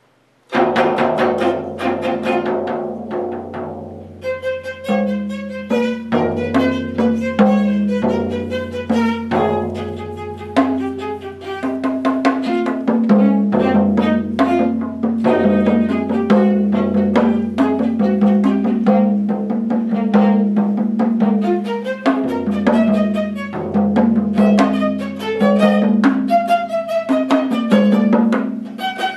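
Viola and four drums playing a fast duet: rapid drum strokes under bowed viola lines, beginning suddenly about half a second in.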